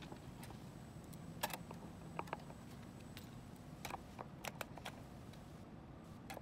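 Scattered small metal clicks and taps, the loudest about a second and a half in, as a hand screwdriver seats and turns small screws into the metal bracket and frame of a video-wall module.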